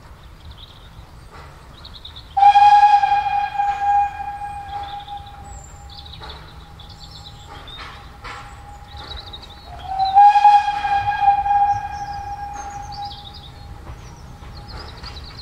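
Steam whistle of a Vale of Rheidol 2-6-2T narrow-gauge tank engine, sounded twice in two long blasts about seven seconds apart, each tailing off. The engine is whistling as it approaches a level crossing.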